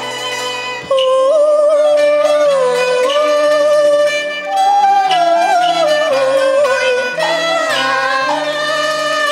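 A woman singing a Cantonese opera song over a traditional instrumental ensemble with bowed strings. The voice comes in about a second in with long, sliding notes.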